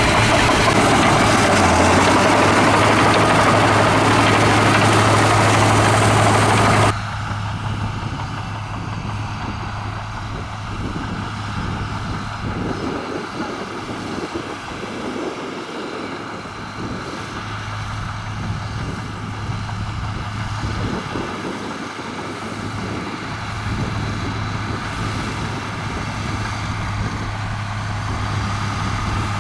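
Komatsu bulldozer's diesel engine running steadily with a low hum. About seven seconds in the sound cuts abruptly to a quieter, steadier engine sound.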